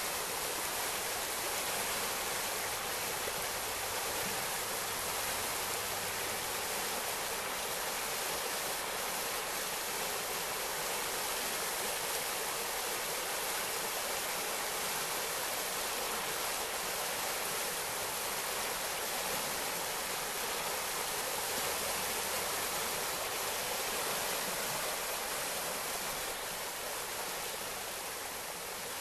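Snowmelt-fed forest stream flowing: a steady rushing and babbling of water, easing off slightly near the end.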